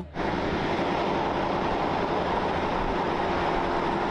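A heavy semi-trailer truck driving on a road: steady engine and tyre noise with a faint even hum, starting abruptly just as the sound begins.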